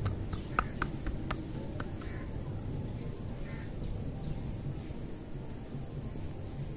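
Hair cracking during a head massage: tufts of hair tugged between the fingers give a quick run of sharp snaps in about the first second and a half. Then only a low background rumble remains, with a few faint calls.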